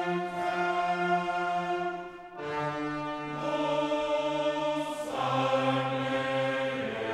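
Background music: slow, sustained choral and orchestral chords that change twice.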